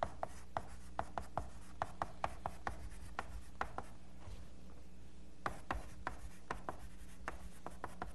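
Chalk writing on a blackboard: a string of sharp, irregular taps and scrapes, several a second, with a short pause about halfway, over a steady low room hum.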